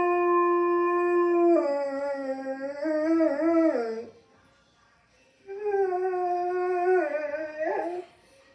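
A dog howling: a long, steady howl that drops lower and wavers about one and a half seconds in and fades out around four seconds in, then, after a short pause, a second howl that falls in pitch toward its end.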